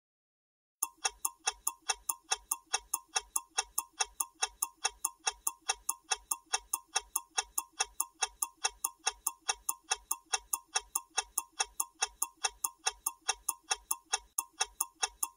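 Clock-ticking sound effect for a quiz countdown timer: sharp, even ticks about three a second. They start about a second in.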